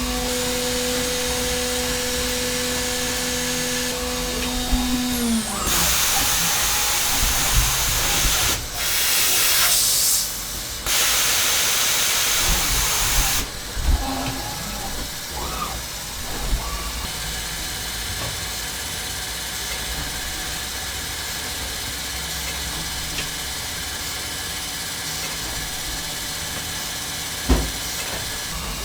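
Hermle C400 CNC milling machine's spindle running at a steady high pitch with a small carbide drill, then winding down about five seconds in. Loud bursts of hissing follow for several seconds, then a quieter steady machine hum with a single click near the end.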